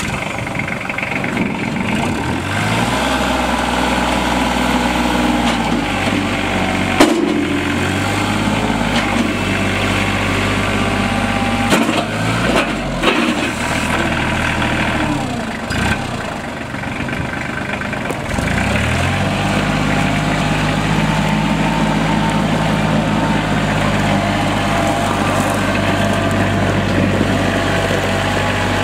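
Kubota L3130 tractor's diesel engine running just after starting. It picks up speed about two seconds in, changes speed a few times with brief dips, then is throttled up to a higher, steady speed about two-thirds of the way through. A few short knocks are heard along the way.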